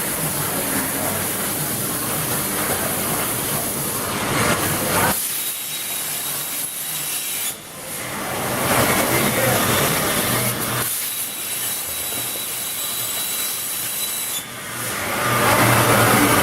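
Hypertherm HPR260XD plasma torch on a CNC bevel head cutting metal, a loud, continuous rushing hiss that dips briefly twice and is loudest near the end.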